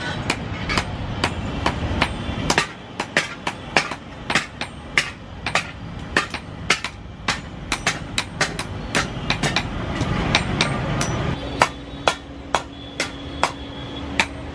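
Hand hammer beating a hot steel khurpi (garden trowel) blade on an anvil, a steady run of sharp metallic blows about two to three a second. A steady low hum joins about eleven seconds in.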